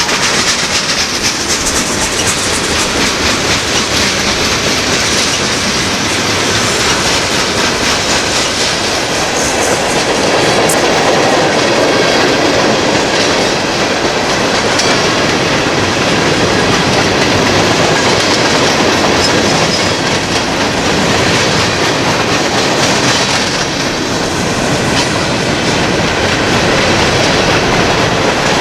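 Freight train cars rolling steadily past, steel wheels clicking over the rail joints with a steady rumble and hiss.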